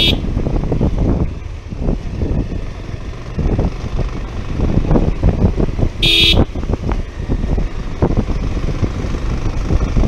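Pulsar 150 motorcycle on the move, with wind rushing over the microphone and two short horn beeps, one right at the start and another about six seconds in.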